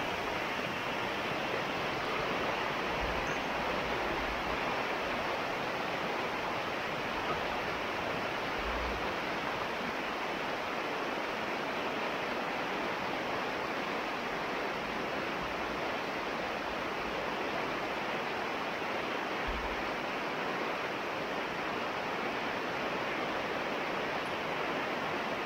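Beaver-pond water rushing steadily out through a freshly blasted breach in the dam, draining the pond.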